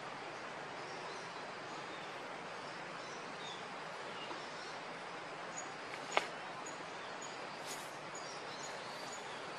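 Steady outdoor background noise with faint high bird chirps; in the second half a run of short high peeps repeats about twice a second, and one sharp click comes about six seconds in.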